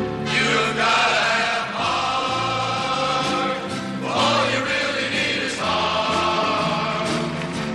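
Music with a group of voices singing over held chords.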